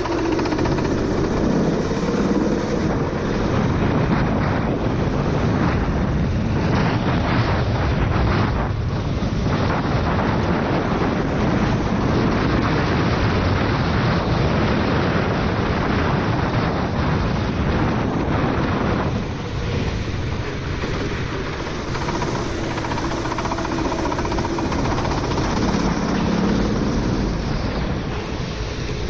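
Four-stroke racing kart engine running at speed on a wet track, under a heavy hiss of water spray from the tyres and wind on the onboard microphone. The engine note drops briefly about two-thirds of the way through, then builds again.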